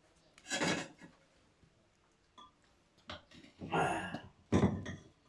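Short, noisy mouth sounds of someone drinking: one about half a second in, then three more in quick succession in the second half.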